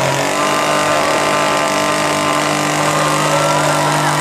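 Two-stroke chainsaw engine running steadily at one even pitch.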